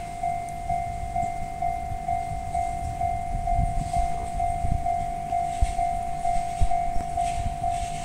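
Japanese level-crossing warning bell ringing steadily, about two dings a second. Beneath it, from about halfway through, the low rumble of an approaching SAT721 series electric train, with a few dull thumps.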